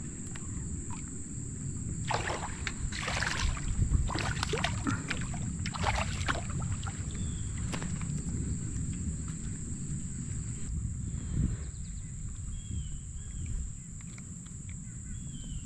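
A hooked smallmouth bass splashing at the surface beside a kayak as it is reeled in and lifted out of the water, with several splashes in the first half.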